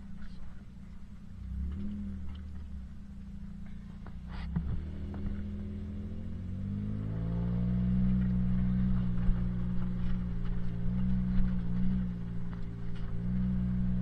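Four-wheel-drive truck's engine heard from inside the cab, driving on a rough gravel track. A few knocks come about four seconds in. The engine note then climbs as the truck accelerates and settles into steady running, louder toward the end.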